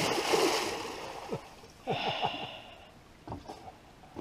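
Splash of a person jumping into the sea, fading as the water churns, with short falling bubble bloops. About two seconds in a second, shorter splash comes as he surfaces and swims.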